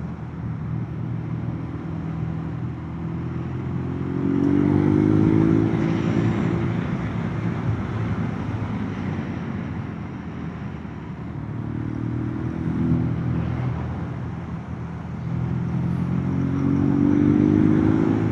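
A vehicle's engine running on the road under a haze of road noise, its pitch rising as it accelerates about four seconds in, again near thirteen seconds, and from about fifteen to eighteen seconds.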